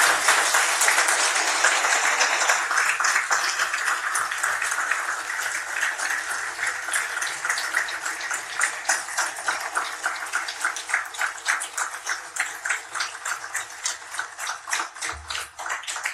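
Audience applauding: dense at first, then thinning into more and more distinct separate claps toward the end.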